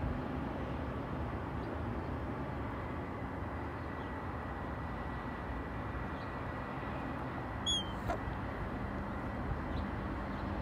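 Steady outdoor background noise with a low rumble, and a single short, high chirp about three-quarters of the way through.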